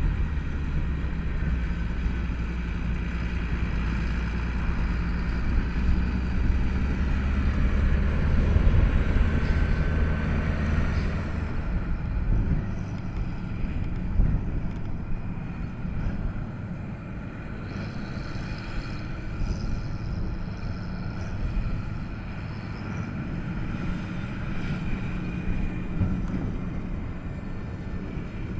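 Diesel tractor engine running steadily while it pulls a baler. A heavy low rumble lasts for about the first twelve seconds, then eases to a lighter running sound.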